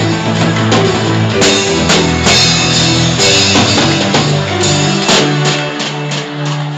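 Live band music with drum kit, bass and guitar, held chords and steady drum hits, easing off near the end.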